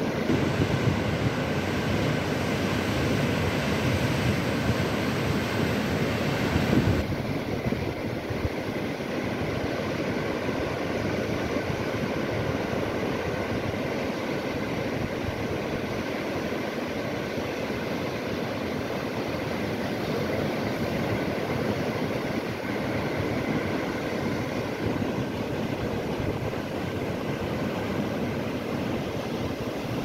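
Sea waves washing onto the shore in a steady rushing noise. About seven seconds in, the sound drops abruptly and turns duller, then carries on evenly.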